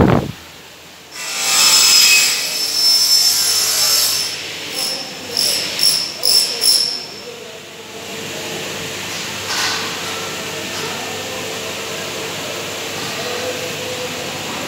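Workshop power tool running with a high whine, then starting and stopping in about six short bursts, followed by a steady machine hum.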